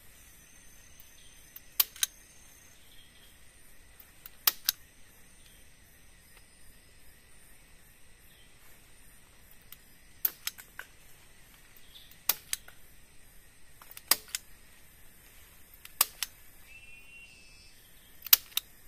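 Sharp knocks, mostly in pairs about every two seconds, from tool strikes during shelter building, over a steady high-pitched insect drone.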